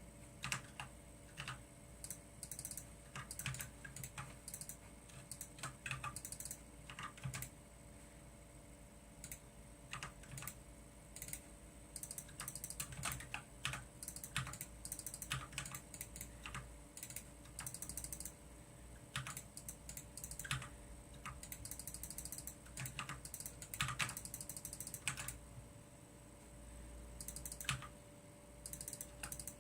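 Computer keyboard being typed on: irregular key clicks, sometimes in quick runs, over a steady faint hum.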